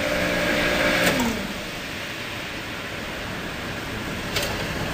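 Industrial aqueous parts washer's pumps running with a steady hum; about a second in a float switch clicks and the pump hum falls in pitch and dies away as the low-water float cutoff shuts the machine down. A steady mechanical noise remains, with another click near the end.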